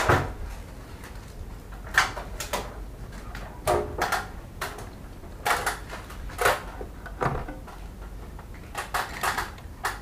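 Irregular clicks and knocks, about a dozen at uneven intervals, a few with a short ring, from parts and tools being handled during repair work, over a faint low steady hum.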